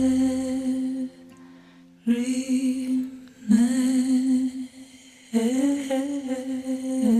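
Background music: a voice humming long held notes in short phrases, with brief pauses between them.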